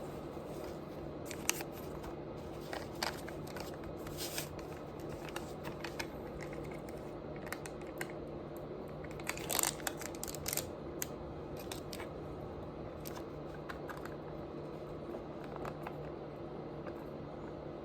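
Scattered crackles and crunches from someone eating, over a steady low hum, with a denser cluster about halfway through.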